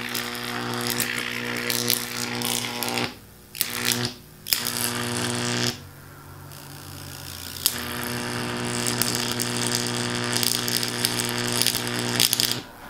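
High-voltage arc buzzing and crackling as it jumps through the cracks in a tablet's glass screen and burns it. The arc comes in runs: it breaks off briefly about 3 and 4 seconds in, drops away for about two seconds around 6 seconds, then buzzes again until near the end.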